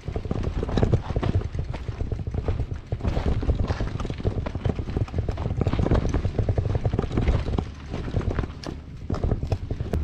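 Irregular crunching footsteps and tyre noise on loose ground as a heavily loaded touring bicycle is pushed up a steep slope, with a low rumble underneath.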